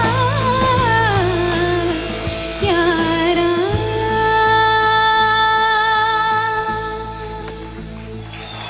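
A solo voice singing with instrumental backing: long held notes joined by short ornamented runs, over a steady low accompaniment, the phrase fading near the end.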